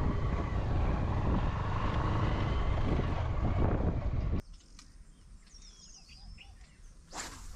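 Motorcycle engine running with wind noise while riding, cutting off suddenly about four seconds in. Then quiet with birds chirping, and a short rush of noise near the end.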